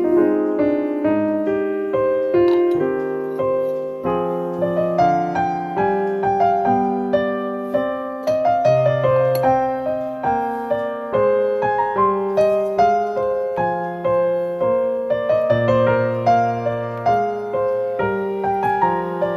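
Background piano music: a steady run of single melody notes over lower held chord notes.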